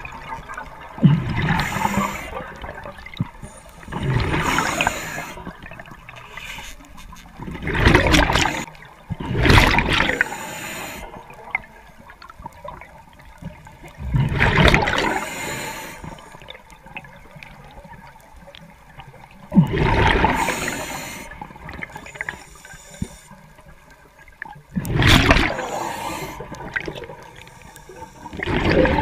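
A diver breathing through a regulator underwater: bursts of exhaled bubbles rush past the microphone every few seconds, with quieter bubbling and the hiss of inhaling between them.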